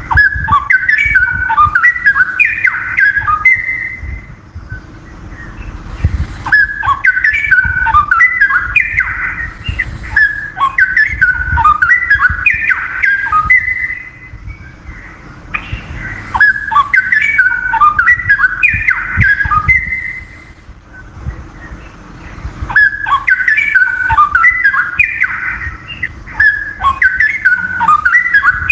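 Straw-headed bulbul singing: loud, rich phrases of quick, jumping whistled notes, each phrase lasting several seconds, with short pauses between them.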